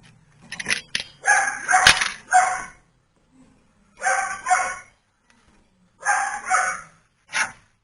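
Repeated animal calls, mostly in short pairs: a group about a second in, then pairs about four and six seconds in and a single call near the end.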